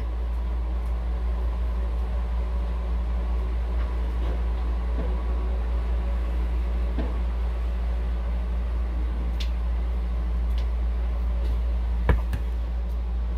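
A steady low hum of room noise, with a few faint knocks and one sharper knock about twelve seconds in.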